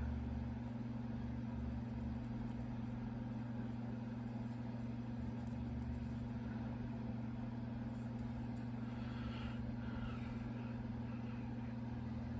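A steady low hum with two even tones, with a few faint clicks about two-thirds of the way through.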